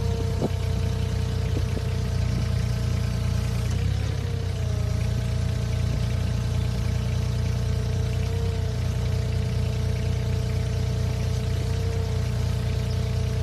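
Heavy demolition machine's engine running steadily: a deep hum with a whining tone above it that shifts slightly in pitch about four seconds in and dips briefly twice later. A few light clicks sound near the start.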